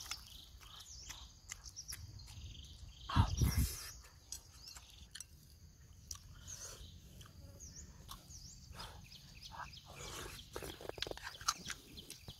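Eating sounds: chewing, and a metal spoon clicking and scraping in a ceramic bowl of soup, the clicks clustering near the end. Short chirping bird calls repeat in the background, and a loud thump comes a little over three seconds in.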